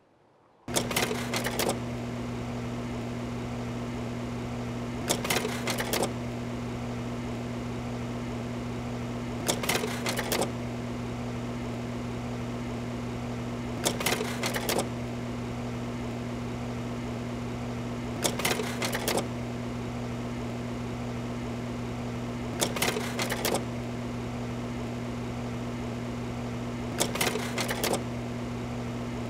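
A steady low machine hum starts suddenly about a second in. Over it, a short rattling clatter of clicks recurs evenly about every four and a half seconds, seven times.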